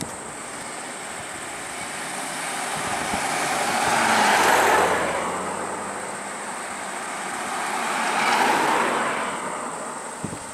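Two road vehicles passing close by, each a swell of engine and tyre noise that rises and fades, the first about four seconds in and the second about eight seconds in.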